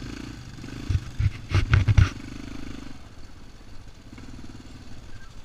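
Small ATV engine running at low trail speed with a steady drone. About one to two seconds in, a quick cluster of knocks and rattles is louder than the engine.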